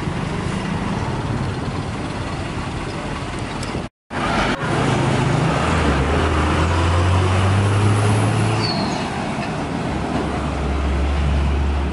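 Street traffic at the roadside: heavy diesel vehicles and motorcycles passing close, with a strong low engine drone as a bus and then a cargo truck go by in the second half. The sound drops out briefly about four seconds in.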